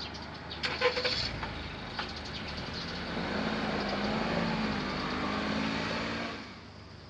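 A road vehicle drives past, its engine and tyre noise swelling and then dropping away about six seconds in, after a few sharp clicks about a second in.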